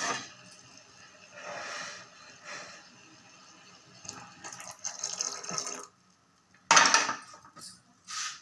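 Tea being poured from a pan into cups in several short spells of liquid splashing, with a sharp clatter of a metal utensil being set down about seven seconds in.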